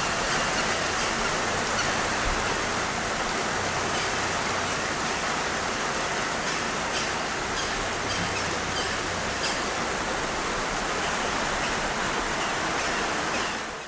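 Heavy rain falling steadily, a dense even hiss with scattered drop ticks, fading out just before the end.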